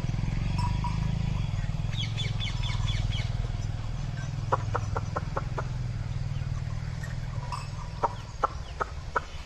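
A quick run of short clucks about two seconds in, then two sets of sharp clicks, about five a second, a little after four seconds and again near the end, over a steady low rumble.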